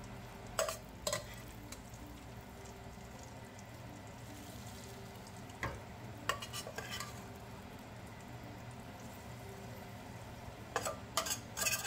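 A metal utensil clinking and scraping in a hot frying pan in short clusters, about a second in, around six to seven seconds in, and near the end, as garlic butter and herbs are spooned out of the pan onto a seared steak. A faint steady sizzle of butter runs underneath.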